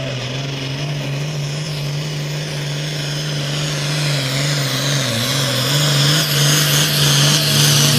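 Hot farm pulling tractor's turbocharged diesel engine held at full throttle while dragging the pulling sled, with a high turbo whistle over the steady engine note. It grows louder over the last few seconds as the tractor comes closer.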